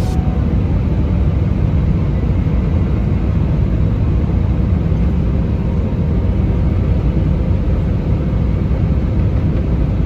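Steady cabin noise of an Airbus A319 on approach with its flaps extended: a low, even rumble of jet engines and rushing air heard from inside, with a faint steady hum.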